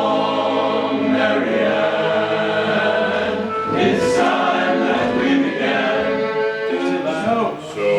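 A choir singing long held chords of several voices together, with a brief dip in level near the end.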